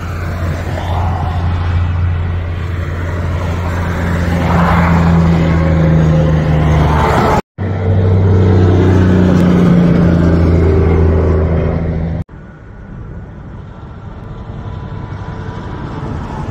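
Diesel tractor-trailers passing on a highway, a steady low engine drone with tyre noise, growing louder as each rig goes by. Two sudden cuts, about seven and twelve seconds in, split it into three passes; the last is quieter.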